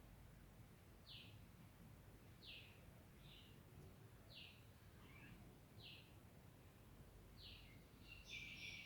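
Faint bird calls: a short, high, falling note repeated about every one and a half seconds, with a few softer chirps between and a burst of denser chirping near the end, over a low background hum.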